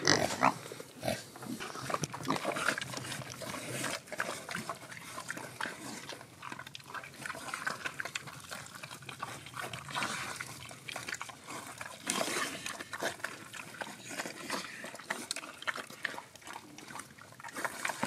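Pigs grunting, mixed with many short, irregular clicks and scuffling noises.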